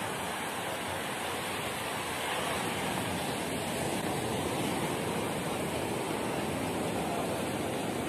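Ocean surf breaking and washing up on a sandy beach: a steady rushing wash that swells slightly about two seconds in.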